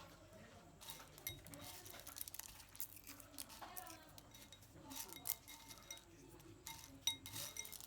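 Scattered clinks and rattles of peanuts and kitchen utensils being handled, with a few sharper clinks about five and seven seconds in.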